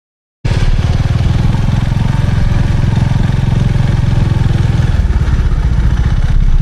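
An engine running steadily with a fast even pulse, cutting in abruptly about half a second in.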